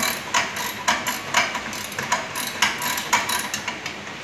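Ratchet wrench clicking in quick regular strokes, about four a second, as a bolt is turned; the clicking stops near the end.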